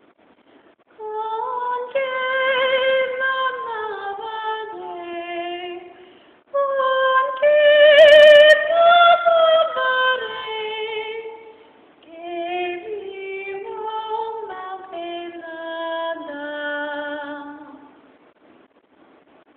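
A woman singing a Spanish opera piece in classical style, unaccompanied, with vibrato, in three phrases separated by short pauses. The middle phrase is the loudest, and its high note about eight seconds in briefly crackles on the recording.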